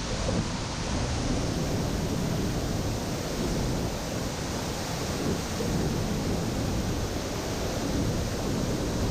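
Steady rushing roar of a large waterfall, water pouring and crashing down continuously.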